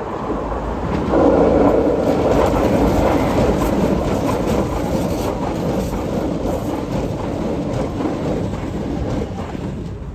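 Siemens MX3000 metro train passing close by: a steady rumble of wheels on rail with many quick clicks. It swells about a second in and fades near the end as the train moves away.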